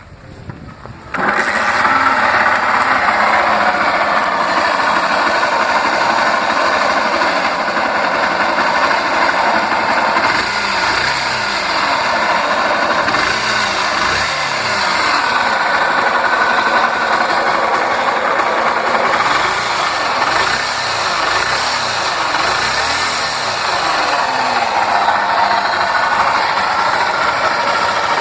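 Honda CG 125 Fan's single-cylinder four-stroke engine starting about a second in, then running and revved up and down several times from about ten seconds in, with an abnormal mechanical noise from the engine. A mechanic put it down to a worn top end (cylinder and piston); the owner suspects the oil pump or clutch.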